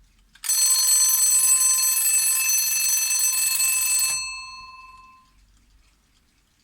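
Alarm bell of a PETER footballer-automaton alarm clock ringing continuously for about three and a half seconds, then stopping abruptly, its ringing tones dying away over about a second.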